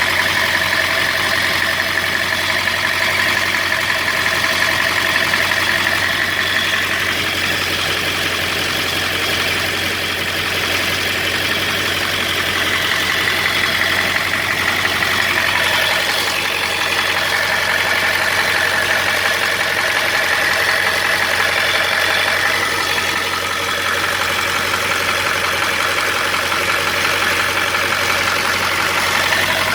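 Ford 7.3-litre Power Stroke V8 turbo-diesel idling steadily, heard from under the truck near the transmission. The truck shakes, which the mechanic blames on an out-of-balance flywheel or torque converter rather than a misfire.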